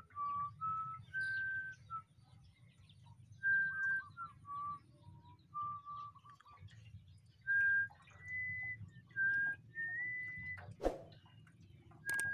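A person whistling a slow tune: a string of short held notes that step up and down in pitch, with a couple of upward slides, over a low steady hum. A single sharp click comes near the end.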